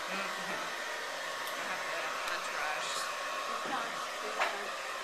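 A hair dryer running steadily, a continuous even blowing noise.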